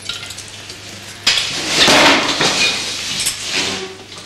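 Cutlery clinking on plates, then about a second in a sudden loud crackling clatter lasting about two seconds: a prank popper firecracker going off on the floor beside a diner's table.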